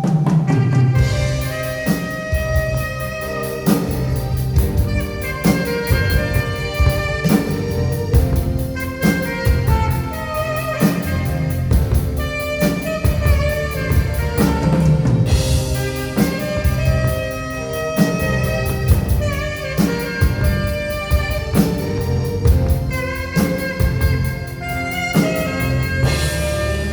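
Live instrumental band music: an alto saxophone plays the melody over keyboard backing and a steady drum-kit beat.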